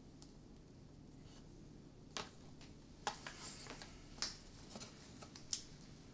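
Pen and paper handling while a loan document is signed: a few faint clicks and knocks, with a short scratching stretch about three seconds in.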